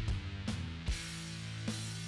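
Background music with steady sustained chords and drum hits.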